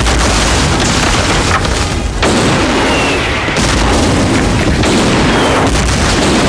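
Action-film explosions: a run of loud booms and blasts from fireballs, with a short drop about two seconds in.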